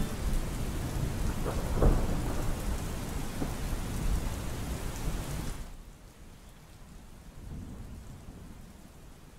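Heavy rain with rolling thunder, a low rumble swelling about two seconds in. A little past halfway the rain drops suddenly to a much fainter, steady hush.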